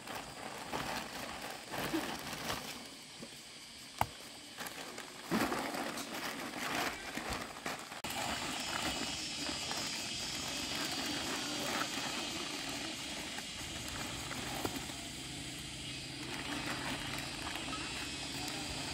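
Thin clear plastic bag rustling and crinkling as whole fish are pulled out of it and laid on a woven plastic sack, with a sharp knock about four seconds in.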